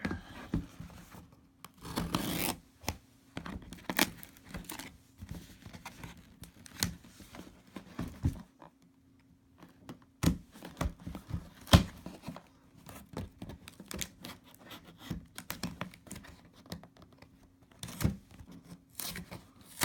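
A shipping package being opened by hand: tape and packaging tearing, with irregular scratching, rustling and knocks. The sharpest knock comes about twelve seconds in.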